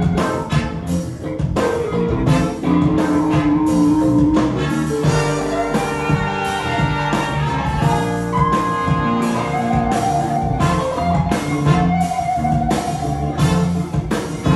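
A live blues band playing an instrumental passage: electric guitar, a horn section of saxophone, trombone and trumpet, keyboard and a drum kit keeping a steady beat.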